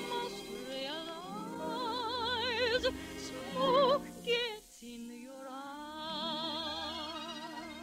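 A solo singer holds long notes with a wide, even vibrato over a studio orchestra, in a slow ballad. The music drops away briefly about four and a half seconds in, then the voice comes back on a rising phrase.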